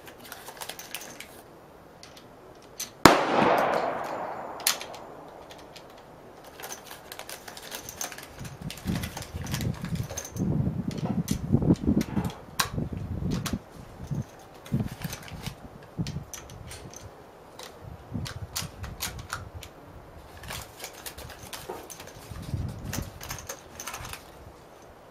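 A single gunshot about three seconds in, with a long echoing decay. It is followed by many irregular metallic clicks, rattles and low knocks as a Mosin-Nagant bolt-action rifle is handled at the bench and cartridges are taken from their box.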